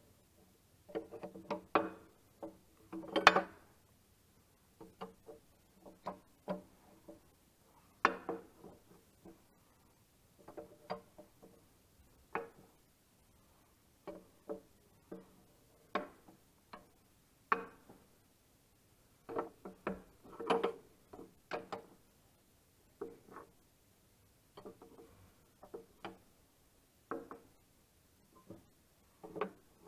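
Ratchet wrench clicking and clinking on metal in irregular short bursts while tightening the bolts of tractor dual wheels, the louder strikes leaving a brief metallic ring.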